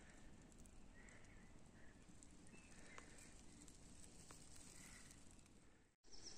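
Near silence: faint outdoor background with a few faint, short high chirps spread through it. The sound drops out briefly near the end.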